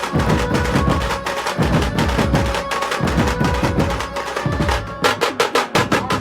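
Loud music driven by heavy, dense drumming. About five seconds in comes a quick run of sharp drum strokes.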